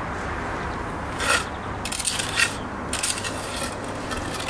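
Steel bricklaying trowel scraping wet mortar along the top of concrete blocks, in about three short rasping strokes.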